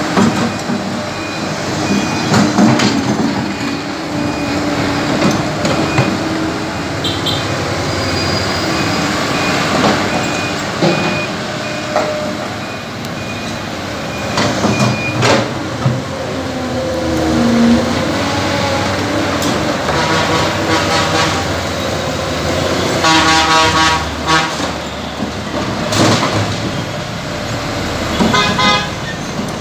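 Excavator loading soil and broken concrete into a dump truck: the engine and hydraulics work steadily, and rubble clatters down into the steel truck bed several times. Vehicle horns honk twice in the last third.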